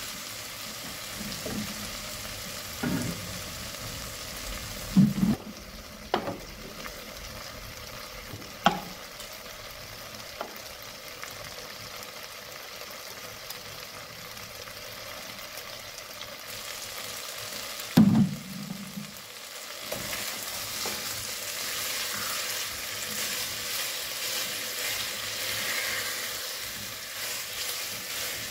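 Chunks of inhame (taro) sizzling steadily as they fry in oil in a pot, stirred now and then with a spatula. A few short knocks of the spatula against the pot, the loudest about eighteen seconds in; the sizzle grows louder over the last third.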